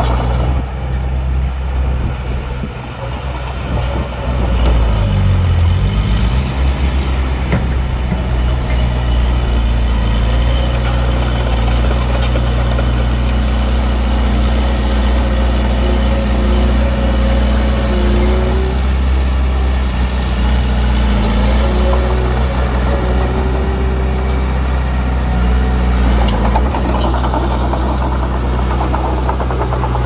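Diesel engine of heavy earthmoving equipment running steadily; it revs up about five seconds in and stays loud after.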